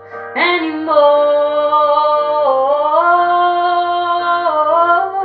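A woman's solo singing voice holding one long note for several seconds, sliding gently down and back up in pitch: a drawn-out melisma at the end of a sung line.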